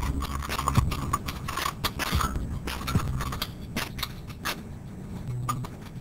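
Scissors cutting down the side of a thin aluminium soda can: a string of irregular crisp snips and crinkles of the metal.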